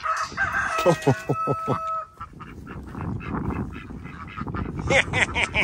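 Domestic geese honking: a quick run of calls in the first two seconds and another cluster of calls near the end.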